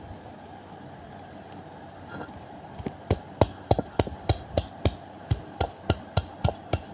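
Stone pestle (ulekan) pounding a shallot and chillies on a stone mortar (cobek) for sambal: a regular run of sharp knocks, about three a second, starting about three seconds in.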